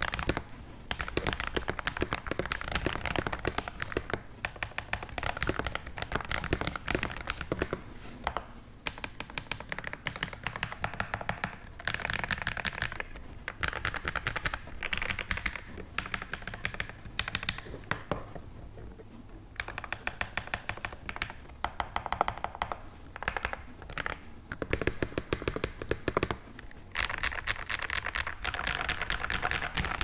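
Typing on a Keychron V1 mechanical keyboard with hand-lubed KTT Kang White V3 linear switches, a polycarbonate plate, and foam and tape mods. A dense run of keystrokes is broken by a few short pauses, the longest about a second and a half near the middle.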